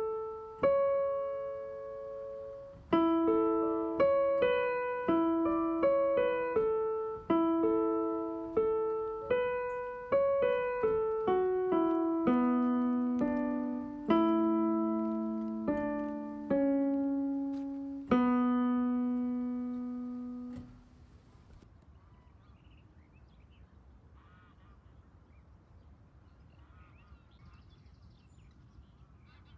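Home-made keyboard background music: a slow melody of single struck notes and chords, each note ringing and dying away. It stops about two-thirds of the way through, leaving only faint background noise.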